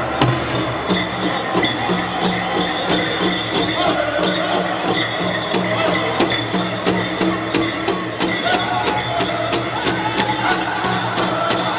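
Powwow drum group singing over a steady unison drumbeat, with the bells on the dancers' regalia jingling.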